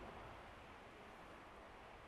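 Faint, steady noise from a winter mountain ambience track, close to silence, with no distinct events.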